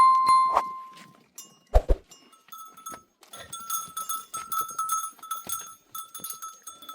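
Livestock bells on the sheep and goats. One bell rings out clearly at the start and fades over about a second, then many small bells keep up a steady jangle as the flock moves.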